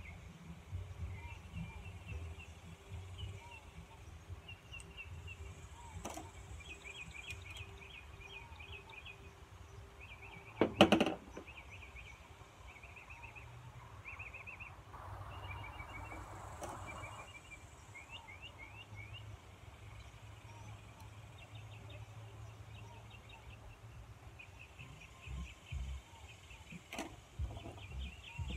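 Birds chirping and trilling steadily in the background, with one sharp metallic clatter about eleven seconds in, as of a hand tool being handled or set down on a work bench.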